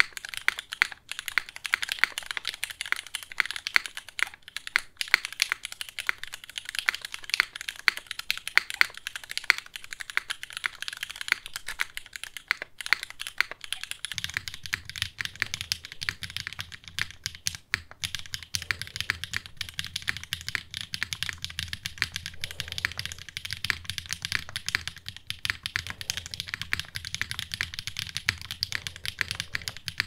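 Fast, continuous typing on mechanical keyboards with linear switches: first a Moontower v3 with Cherry Nixie switches, then, about halfway through, a TGR 910 with HMX Jammy switches. A low steady hum joins the typing from the change of keyboard on.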